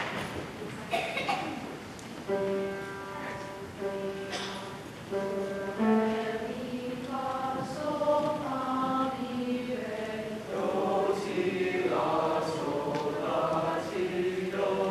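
Male choir singing slow, held chords in several parts. A few knocks come first, the singing starts about two seconds in and grows fuller and louder past the middle.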